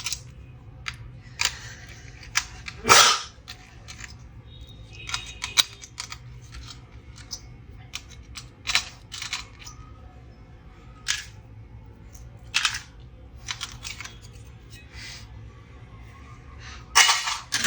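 Scattered clicks and knocks as the opened HP 15-bs laptop and its parts are handled on the bench, with the loudest knocks about three seconds in and near the end, over a steady low hum.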